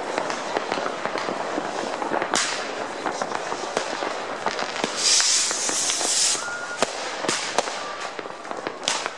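Many fireworks and firecrackers going off at once: a dense, continuous crackle of bangs and pops, with a loud hiss lasting about a second, about five seconds in.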